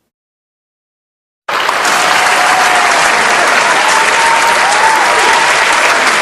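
A crowd applauding, starting suddenly about a second and a half in after complete silence and continuing steadily, with a few faint whistle-like tones in it.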